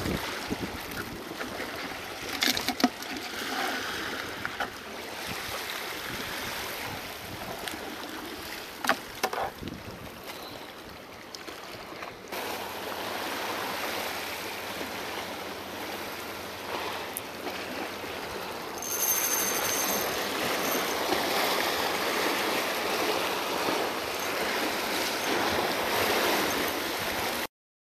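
Small waves washing and sloshing over shoreline rocks in a steady noisy rush, with a few sharp clicks and knocks from handling the spinning rod and reel in the first ten seconds. The sound cuts off suddenly just before the end.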